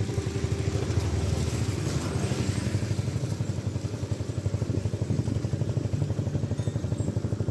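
A small engine running steadily with a rapid, even firing rhythm.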